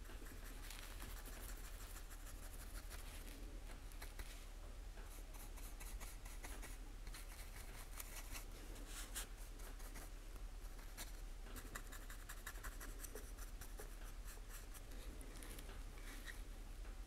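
Fine paintbrush scratching in many short, irregular strokes over the ridged surface of a 3D-printed plastic badge, faint and close, over a low steady hum.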